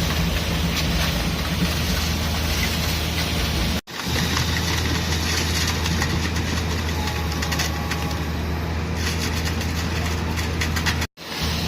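Heavy construction machinery running: a steady diesel engine drone with a low hum. The sound cuts out for an instant twice, about four seconds in and near the end.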